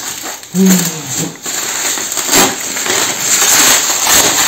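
Bubble wrap crinkling and crackling as it is cut with a knife and pulled open, becoming a dense rustle from about two seconds in.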